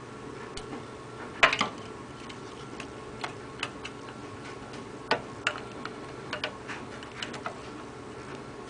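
Plastic laser cannon housing clicking and knocking against the metal cannon mechanism as it is pushed into place by hand: irregular sharp clicks, the loudest about a second and a half in and a run of them between five and seven and a half seconds, over a faint steady hum.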